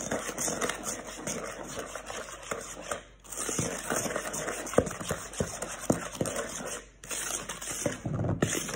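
A spatula scraping and stirring butter, sugar and egg in a plastic mixing bowl, with small knocks of the utensil against the bowl. The stirring pauses briefly twice.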